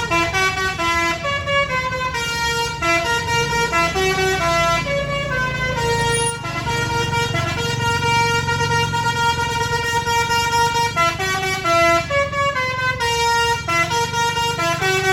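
Bus basuri horn, a multi-note telolet horn, playing a continuous melody of short stepped notes over the low, steady running of the bus's engine.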